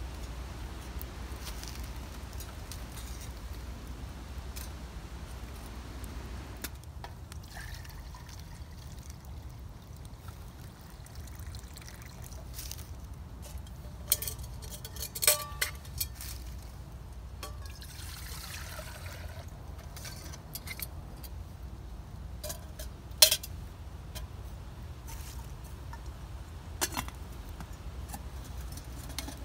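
Metal camp cookware handled beside a small wood-burning firebox stove: sharp clinks and knocks, the loudest about two-thirds of the way through, and a few seconds of water poured into a steel pot before the pot is set on the stove. A low steady rumble lies underneath.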